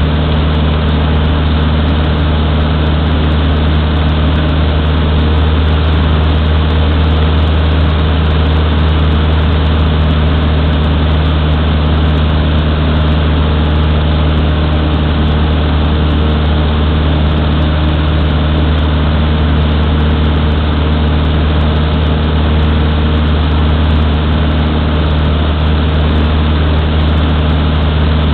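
Cessna 152's four-cylinder Lycoming piston engine and propeller running steadily in flight, heard from inside the cabin as a loud, unchanging drone with rushing air noise.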